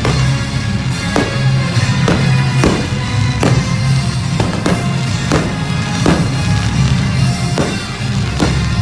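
Loud show music with a heavy drum beat, played for a fireworks display, with fireworks bursting over it. Sharp cracks land about once every three-quarters of a second.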